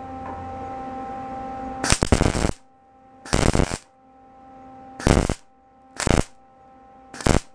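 MIG welder arc crackling in five short tack bursts, each under a second, as a 1-inch galvanized steel EMT conduit tube is stitch-welded onto a shift rod tube. A faint steady hum lies underneath between the bursts.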